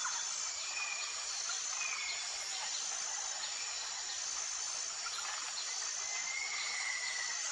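Outdoor nature ambience: a steady high-pitched insect drone over a hiss. A few short bird whistles come through, the last one held for about a second.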